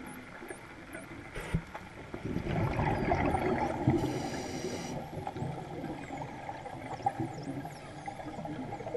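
Scuba diver's exhalation through the regulator, heard underwater: bubbles gurgling and rumbling past the camera. It swells a couple of seconds in and fades after about three seconds.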